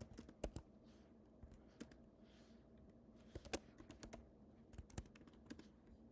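Faint typing on a computer keyboard: irregular, scattered keystrokes as a short title is typed in.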